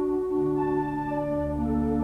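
Organ playing slow, sustained chords, the notes held and changing about once a second, with the deep bass notes coming back in about halfway through.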